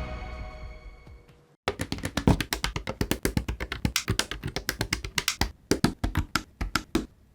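Background music fading out, then after a short silent gap a fast, uneven run of sharp taps and clicks, several a second, which stops suddenly near the end.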